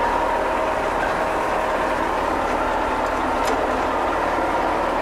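Fortschritt E303 self-propelled mower running while driving, heard from inside the cab: its diesel engine gives a steady drone with a faint, constant whine.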